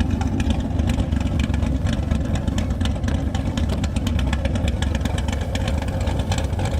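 Cammed Camaro's LS V8 running steadily at low revs off road, with many quick clicks and rattles over the low rumble.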